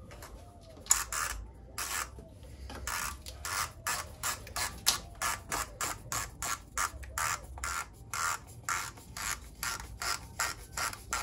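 Plastic oil filter housing cap on an Audi 2.0 TFSI engine being screwed down, its threads and seal rasping in short repeated strokes, about three a second.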